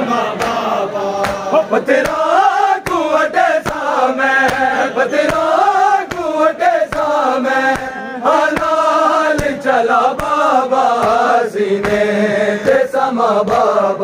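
A group of men chanting a noha in unison, over a steady beat of open-hand slaps on bare chests (matam).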